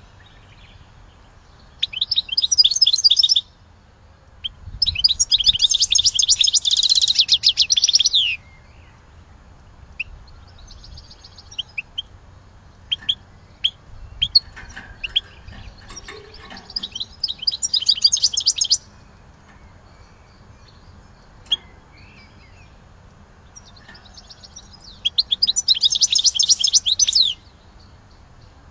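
European goldfinch singing in the Sidi Youcef song style: bursts of rapid, high twittering, the longest about three and a half seconds, with pauses between them broken by scattered single chirps.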